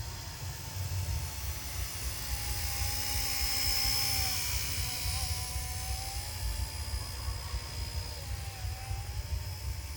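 Small RC Era C032 UH-1 Huey RC helicopter flying, its motors and rotors giving a steady high whine whose pitch wavers slightly as the throttle is adjusted, loudest about three to four seconds in. A low wind rumble runs underneath.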